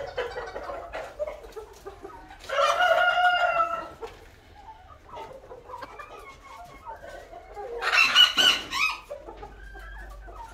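Roosters crowing: one long crow about two and a half seconds in and a second, higher crow about eight seconds in, with fainter clucking between.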